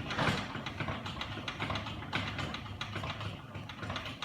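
Table saw's blade-raising handwheel being cranked by hand, giving a quick, irregular run of clicks and rattles from the height mechanism as the blade rises.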